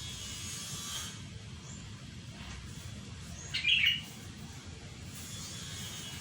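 Flowerpecker chirping: faint, high, thin calls, with one louder, short chirp about three and a half seconds in.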